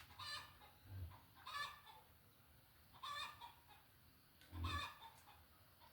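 Chickens clucking, faint: four short calls about a second and a half apart, with a low thud about a second in and another near the end.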